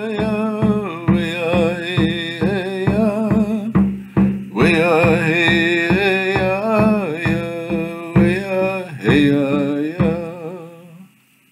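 A man singing while beating a steady rhythm on a hand frame drum with a padded beater, about two strokes a second. The singing and drumming stop shortly before the end.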